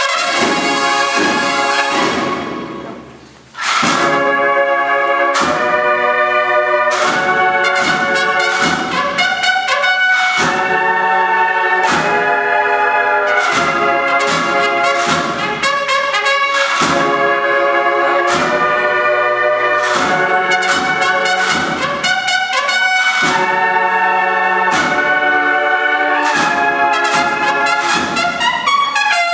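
A brass-and-drum processional band plays a march: brass carries the melody over regular drum strokes. About two seconds in the band stops and the sound rings away in the hall, then the full band comes back in loudly.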